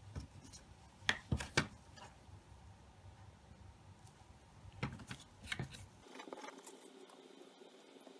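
A few sharp clicks and taps, three close together about a second in and two more near five seconds, over faint background noise, like small hard objects being handled. About six seconds in, the background changes to a faint steady hiss.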